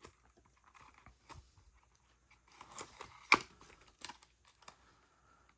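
Pocket knife being handled: faint scrapes and small clicks of metal and scales, with a sharper click a little over three seconds in.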